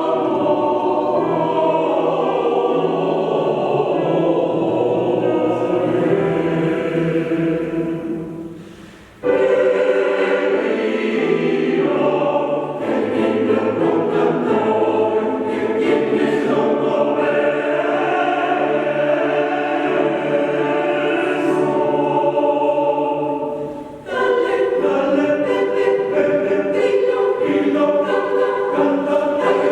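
Choir singing sustained chords in long phrases, breaking off briefly about nine seconds in and again around twenty-four seconds.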